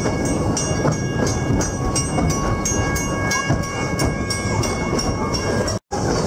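Puffing Billy narrow-gauge steam train running, its wheels clattering on the rails, while a level-crossing warning bell rings rapidly and fades away as the carriage passes the crossing. The sound drops out briefly near the end.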